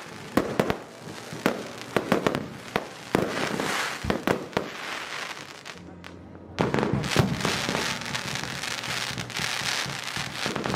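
Fireworks going off: a run of sharp bangs with crackling between them. About six seconds in they briefly drop away, then a dense, continuous crackle of many small bursts takes over.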